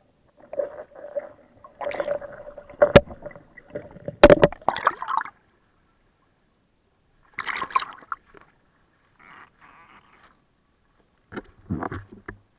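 Muffled underwater water sound picked up by a submerged camera: gurgling with a steady low tone and two sharp knocks, about a second apart. It then goes silent for about two seconds. Brief splashing and a few knocks follow as the camera moves at the water's surface.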